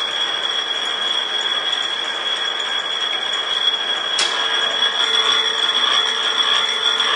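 Workshop machine for cutting round camembert-box bottoms from thin wood, running with a steady mechanical noise. A sharp click comes about four seconds in, after which a steady hum sets in.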